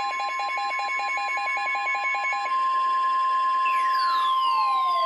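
NOAA Weather Radio's steady 1050 Hz warning alarm tone, sounding ahead of a severe thunderstorm warning. Over it a second alert beeps rapidly, about six times a second, for the first half. About three and a half seconds in, several siren-like tones sweep downward, overlapping.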